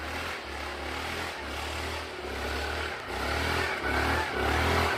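Off-road vehicle engine running and revving while driving through snow, its pitch rising and falling in repeated swells and growing louder toward the end.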